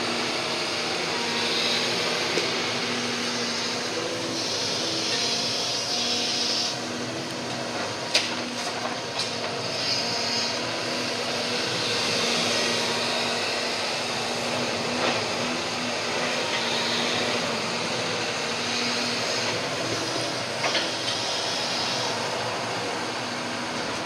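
Hydraulic demolition excavator running, its diesel engine note shifting as the grab works, with a few sharp knocks from the rubble being handled.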